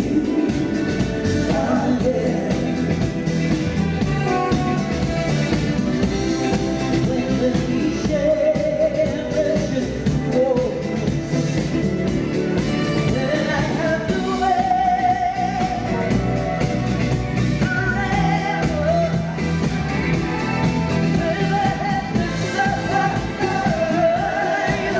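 Female vocal trio singing, a lead voice with harmonies, over a live band of drums, bass guitar, electric guitar, saxophone and keyboards playing a song with a steady beat.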